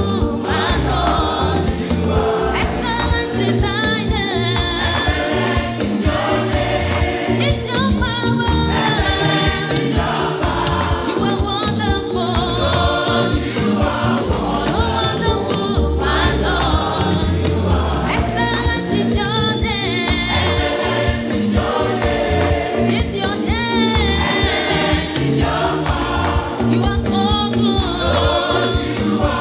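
Gospel music: a choir singing over a band with a steady beat.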